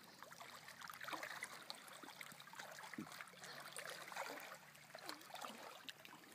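Faint lapping and trickling of lake water in the shallows, a steady soft wash with small ticks and drips.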